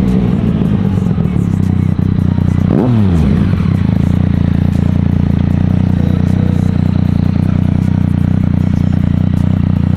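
Motorcycle engine under way, its pitch falling as it slows, then a brief sharp pitch sweep about three seconds in, after which the engine holds a steady note.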